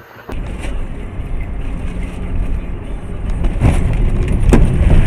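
Low road and engine rumble of a moving car heard from inside the cabin, starting abruptly and building steadily louder, with two sharp knocks near the end.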